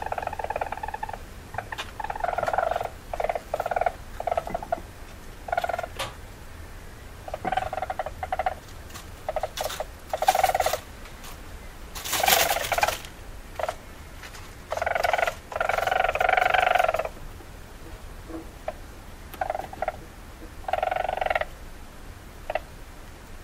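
Least weasel giving rapid pulsed trills and chatters in repeated bursts of under a second to about two seconds, with short pauses between them; a few sharper, higher calls come near the middle.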